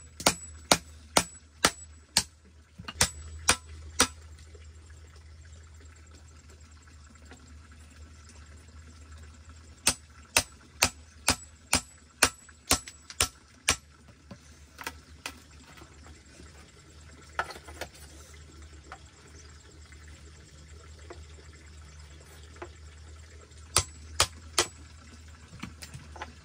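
Hammer striking the back of a blade held against a bamboo pole, chopping out rectangular mortise holes. The sharp knocks come about two a second in bursts, with pauses between the bursts.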